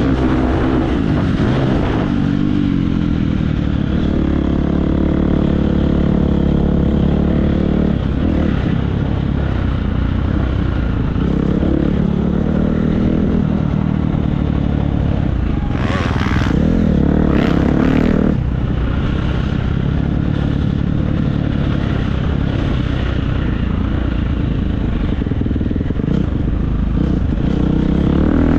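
Husqvarna FC350's single-cylinder four-stroke engine heard from on board, revving up and down with the throttle as it is ridden. About two thirds in come two short, harsh bursts of clatter.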